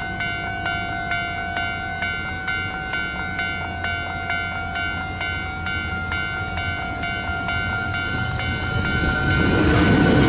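Japanese railway level-crossing warning bell ringing in a steady rhythm, about two strikes a second. In the last two seconds a Hankyu 7300-series electric train draws near, its rumble growing and a motor whine rising in pitch.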